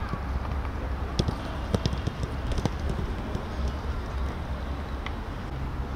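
Footballs being kicked on a grass pitch: a handful of sharp thuds of passes and strikes, most of them between about one and three seconds in and one more near the end, over a steady low rumble.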